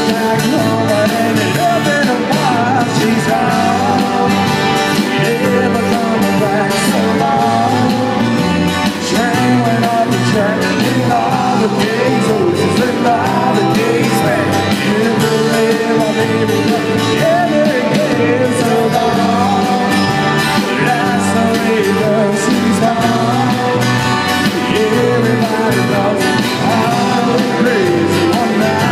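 Live rock band playing a steady-tempo song: electric bass, electric guitar and drum kit, with a sung lead vocal.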